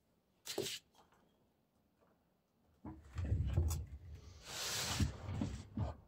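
Handling noises on a wooden desk as hands move from the pen and notebook to the laptop: a short rustle about half a second in, then about three seconds of low knocks and bumps with a sliding scrape near the end.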